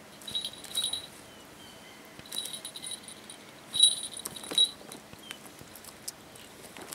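A young Harris hawk feeding on a chick on a falconer's glove: three short bursts of high, steady ringing mixed with small clicks and rustles as it tears at the food and shifts its wings, the loudest about four seconds in.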